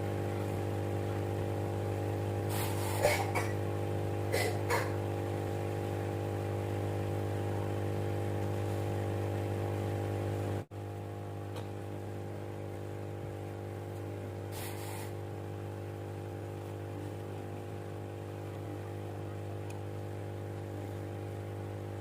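Small homemade aquarium powerhead pump motor humming steadily, with a few short clicks and scrapes a few seconds in. About halfway through the hum breaks off for an instant and carries on slightly quieter.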